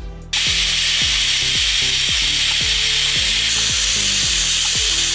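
Pressure cooker whistle: steam hissing out hard from the vent. It starts suddenly about a third of a second in and holds steady, the sign that the cooker has come up to full pressure.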